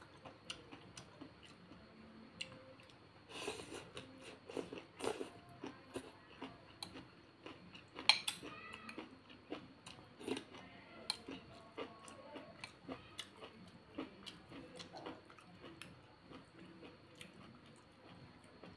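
Close-up eating sounds: chewing and sipping noodle soup, with light clicks of metal chopsticks and a spoon against a ceramic bowl. The sounds come in short irregular bits, busiest about three to five seconds in, with the loudest one about eight seconds in.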